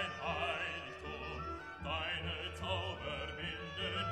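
Background classical music with an operatic singing voice holding notes with vibrato over an instrumental accompaniment.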